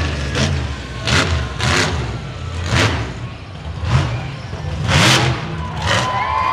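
Monster truck's engine revving in repeated sharp bursts over a steady low rumble as the truck goes into a wheelie. A high whine comes in near the end.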